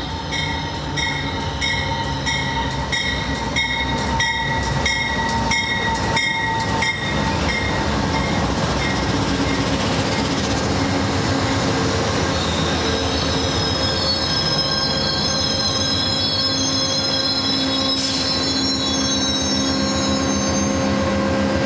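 Amtrak Southwest Chief pulling into the station behind GE P42DC locomotives. For the first several seconds a bell rings about twice a second. Then the locomotive and passenger cars roll past close by, with heavy rolling wheel noise. In the second half a high steady wheel and brake squeal sets in as the train slows for its stop.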